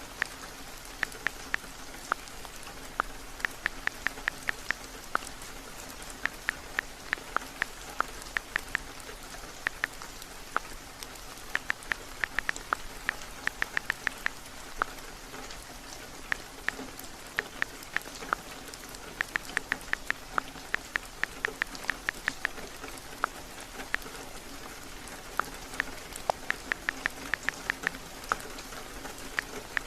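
Steady rain falling, with bursts of quick, sharp clicks from typing on a phone's touchscreen keyboard, coming in runs of several taps a second with short pauses between.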